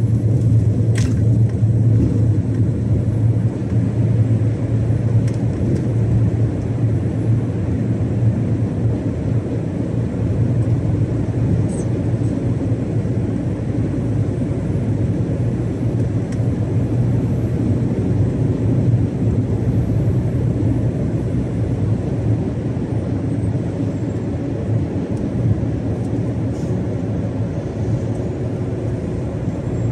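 Iveco Stralis 570XP truck cruising on the motorway: a steady engine drone over road and wind noise.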